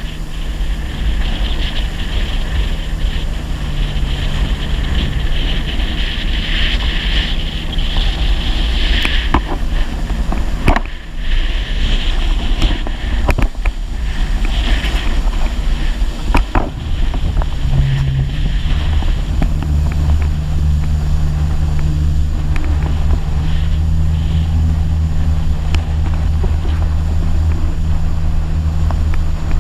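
Personal watercraft engine running under way, a steady low hum, with water and wind rushing past the microphone. A few sharp knocks come midway, and the engine hum grows steadier and stronger in the last third.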